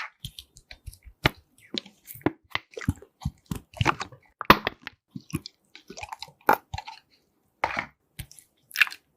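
Slime being mixed: a run of irregular wet clicks, pops and crunches, several a second, with short pauses.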